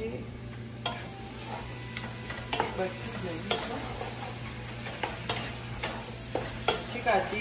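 Wooden spoon stirring chopped sweet potato leaves in a pot, with irregular scrapes and knocks against the pot, over the sizzle of the greens cooking.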